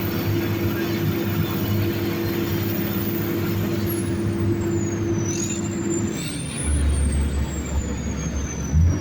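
Heavy diesel engine of an earthmoving machine running steadily under work, with a high whine that falls and rises in pitch. About six seconds in, the engine note gives way to a deeper low drone, and the first note comes back near the end.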